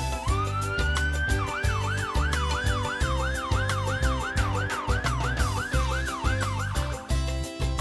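Electronic ambulance siren: it rises in pitch, then wails up and down about two and a half times a second and cuts off about seven seconds in. Background music with a steady beat plays underneath.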